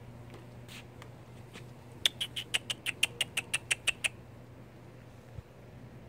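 Striped skunks play-fighting, with a rapid run of about a dozen short, high squeaks, roughly six a second, lasting about two seconds.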